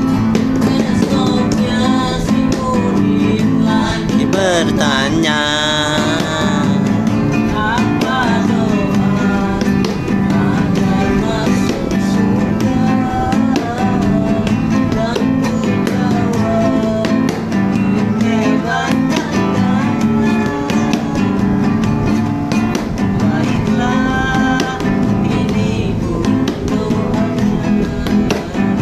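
Acoustic guitar strumming with singing, the voice wavering up and down in pitch about five seconds in.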